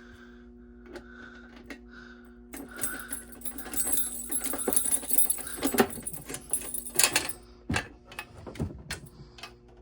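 Metal pieces jingling and rattling as they are handled, loudest from about two and a half to seven seconds in, with scattered clicks and knocks over a steady low hum.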